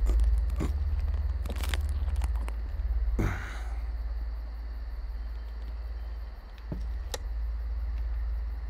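Low, steady rumbling drone from a horror film's sound design, with scattered faint clicks and knocks. A brief hiss comes about three seconds in.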